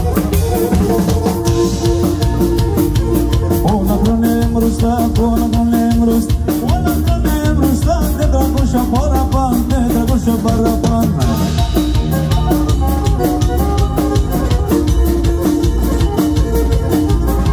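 Live band playing Pontic Greek dance music: a drum kit keeps a steady beat under a wavering melody line on the Pontic lyra.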